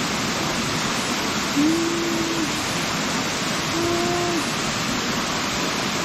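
Waterfall pouring into a rock pool: a steady rush of falling water. Two short held tones, each under a second long, sound over it about two seconds apart.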